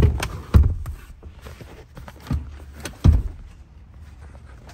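Four dull thumps and knocks: one at the start, then about half a second, two and a quarter seconds and three seconds in. The second and fourth are the loudest. Under them runs a steady low hum.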